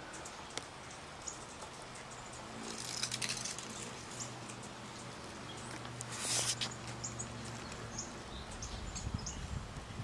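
Outdoor ambience: scattered faint high bird chirps, a steady low hum for several seconds in the middle, two brief rustles, and low rumbles near the end.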